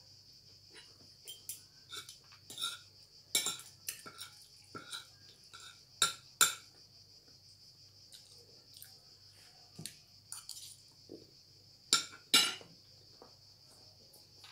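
Eating sounds: a metal spoon and fork clinking and scraping on a ceramic plate, with chewing and mouth noises, in scattered short clicks. The loudest come in pairs a few seconds in, about six seconds in and near the end. A faint steady high-pitched whine runs underneath.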